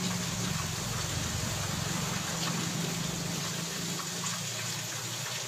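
Steady hiss of background noise with a low hum underneath; the hum fades out near the end.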